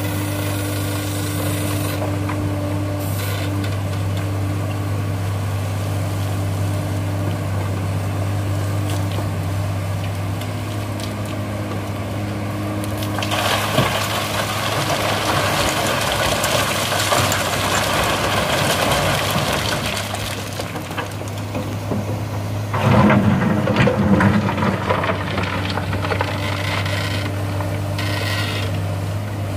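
Komatsu hydraulic excavator loading black sand into a dump truck: a steady diesel engine hum throughout, with a rush of sand and stones pouring from the bucket into the steel truck bed for several seconds about halfway through. Near the end comes a louder, rougher burst as the bucket digs into the pile.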